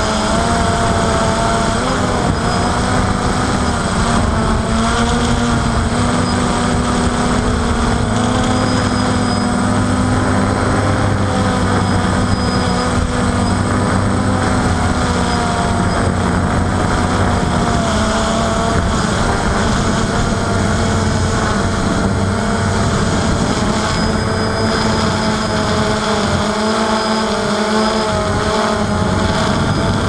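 DJI Phantom quadcopter's propellers and motors buzzing steadily in flight, heard from a camera on board. The pitch wavers slightly as the motors adjust, over a low rumble of wind buffeting.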